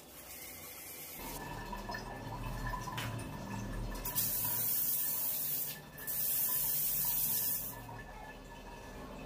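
Water spraying from a handheld health faucet (bidet spray gun) in short bursts as its trigger is pressed, hitting the tiled wall and floor. The hiss grows loud about four seconds in, breaks off briefly near the sixth second, and drops back near the end.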